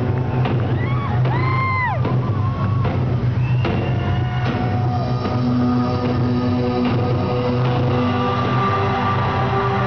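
Loud live rock concert music in an arena, a steady low drone with sustained higher tones held over it. About a second in, a shrill whistle-like tone rises and falls.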